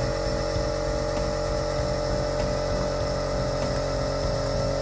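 Air compressor running with a steady hum of several fixed tones, started up after the blow gun was used.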